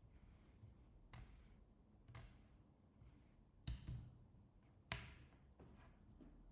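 Four faint, sharp clicks of small hand tools tapping against a phone battery's BMS board while it is being desoldered, spaced about a second apart, the third the loudest.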